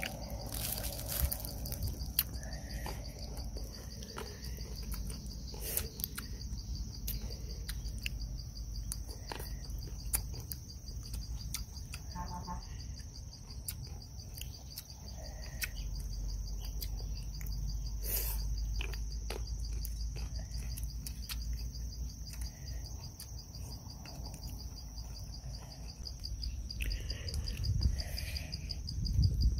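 Steady, high-pitched insect chorus, a fast even pulsing trill, with scattered short clicks over it.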